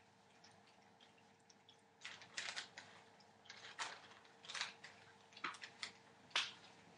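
Faint, irregular soft clicks and rustles from 24-day-old Entlebucher Mountain Dog puppies, starting about two seconds in, with the sharpest click near the end, over a faint steady hum.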